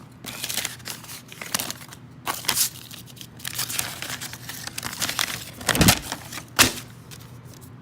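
Packaging crinkling and rustling as an exhaust's box contents are handled, in repeated bursts, with two dull thumps about six seconds in.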